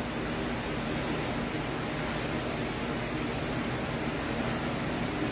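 Steady hiss of room background noise, with no distinct sound events.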